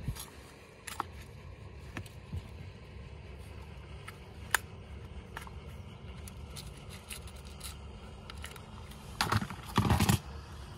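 Small clicks and scrapes of fishing tackle being handled as an offset hook is tied onto a fluorocarbon drop-shot leader, over a low steady rumble. Two louder scraping noises come about nine seconds in.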